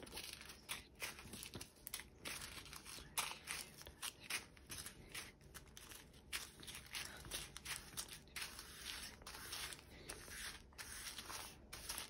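Small plastic zip bags of diamond painting drills crinkling and rustling in irregular short bursts as they are picked up and laid down one after another while being counted.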